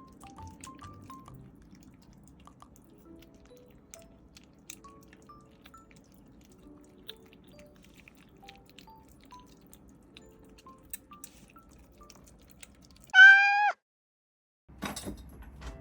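A single high-pitched cat meow, about half a second long, near the end. It rises slightly and then drops, over quiet background music of slow single notes.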